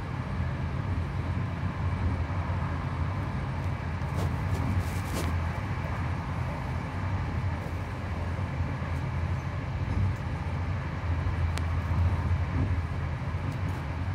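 Steady low rumble of a moving train heard from inside the carriage, with a few brief sharp clicks about four to five seconds in.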